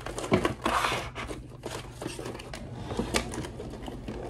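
Irregular light clicks and rustling from small items being handled on a desk, a little louder in the first second, over a low steady hum.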